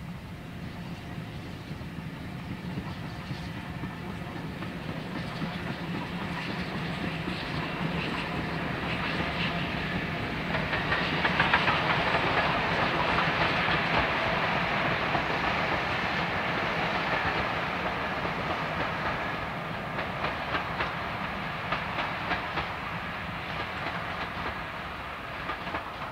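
A steam-hauled passenger train going past, swelling to its loudest a little under halfway through and then slowly fading, with a run of clicks from the wheels in the second half.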